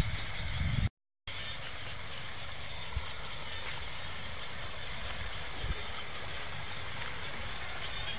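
Night chorus of frogs and insects calling, with a steady, evenly pulsing trill throughout. The sound cuts out completely for a moment about a second in.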